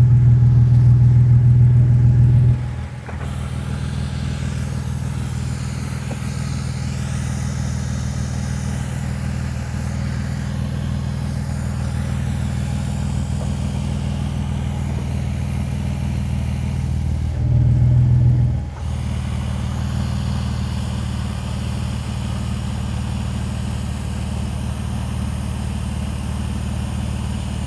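Jeep engine idling steadily while its exhaust is fed through a hose into an X-Jack exhaust-inflated airbag jack. About three seconds in, the exhaust note drops and turns hissier as the tip goes into the jack's funnel. It is briefly louder again about two-thirds of the way through.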